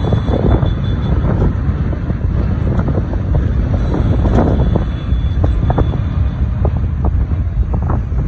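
Wind buffeting the microphone of a moving vehicle, in uneven gusts over a steady low rumble of road and traffic noise.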